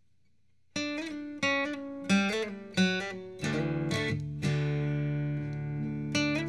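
Instrumental acoustic guitar music starting about a second in: picked notes and strummed chords, with a low chord left to ring through the middle.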